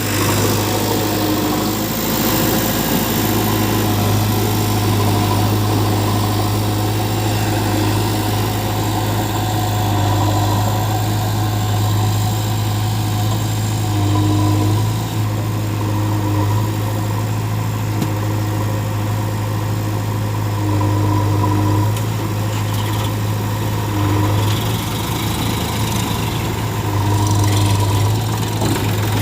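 Heavy diesel engine running steadily near idle: a deep, constant hum with a fainter higher tone that comes and goes.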